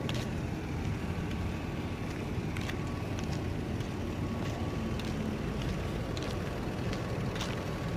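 A Nissan's straight-piped exhaust running steadily with the engine idling: an even, low rumble with a few faint ticks.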